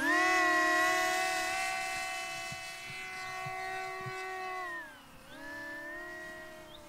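Twin brushless electric motors and propellers of a HEE WING T-1 Ranger RC wing whining at high throttle, a steady pitched drone. About five seconds in, the pitch dips and the sound drops away briefly, then comes back slightly lower and fainter.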